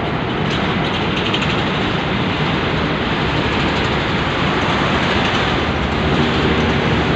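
Steady loud rumble of a container ship manoeuvring close alongside the quay, its engine and propeller wash churning the water.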